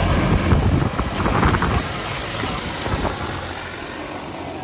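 DJI Agras T40 agricultural spreading drone lifting off and flying away, its big rotors giving a loud, steady rushing drone that is loudest in the first second or two and then slowly fades as it moves off.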